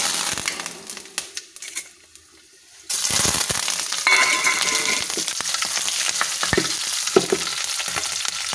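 Tadka sizzling in a kadai: green chillies and curry leaves frying in hot oil. A first sizzle fades, then about three seconds in the sizzling suddenly turns loud, as the chillies and leaves hit the oil, and stays steady, with a few sharp clicks and pops.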